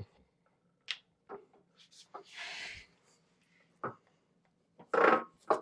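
Scattered clicks and knocks of handling at a milling machine while its speed and feed are being set, with a short hiss in the middle and a louder knock near the end.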